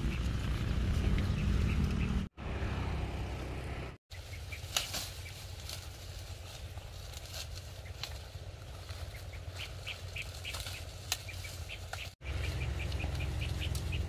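Dry corn plants rustling and crackling as ears are picked by hand, with short high bird chirps repeating and a low wind rumble on the microphone in parts. The sound cuts off abruptly three times at edits.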